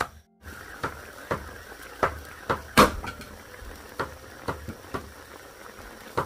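Meat frying in a wok, bubbling and sizzling in its fat, with sharp knocks about twice a second, the loudest near three seconds in.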